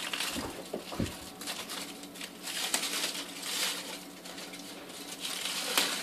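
Aluminium foil crinkling in irregular crackly bursts as it is peeled and unwrapped by hand from a small plastic tub, with a soft knock about a second in.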